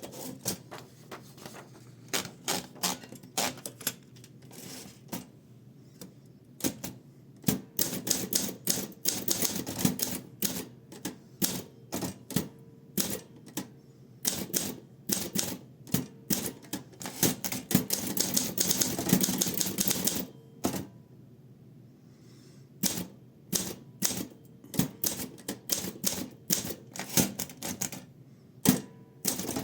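Olympia SM8 manual typewriter being typed on: a steady run of sharp, irregular keystroke clacks, with a short pause about two-thirds of the way through.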